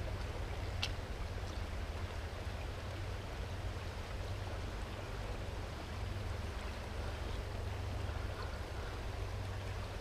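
Steady flow of shallow river water, with a low rumble underneath and a single faint click about a second in.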